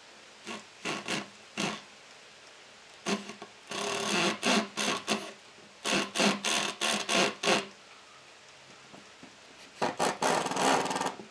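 Makita cordless impact driver driving screws into log rails, in a series of bursts: a few short ones, then longer runs of a second or more, with pauses between.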